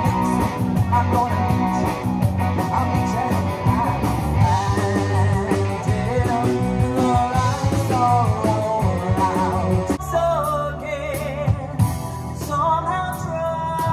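Live rock band playing: a woman singing lead over electric guitars and a drum kit. About ten seconds in the full band drops back to a sparser passage, with the voice and separate drum hits standing out.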